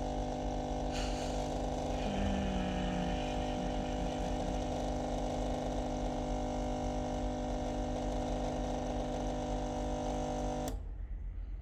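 Nespresso Lattissima Touch pod machine's pump running with a steady, even hum while brewing a lungo. It cuts off suddenly near the end as the brew finishes.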